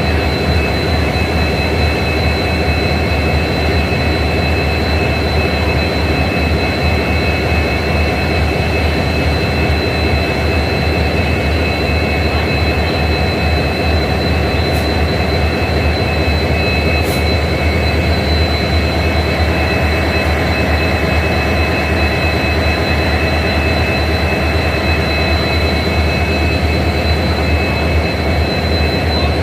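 Two EMD WDP4D diesel-electric locomotives idling together, their 16-cylinder two-stroke EMD 710 engines giving a steady, even hum with a constant high-pitched whine over it.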